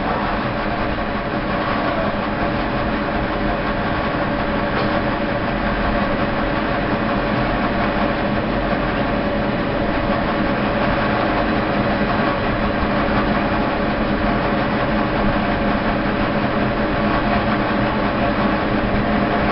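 4–12 mm rope making machine running steadily while winding rope onto its take-up bobbin: an even mechanical hum with several steady tones that does not change.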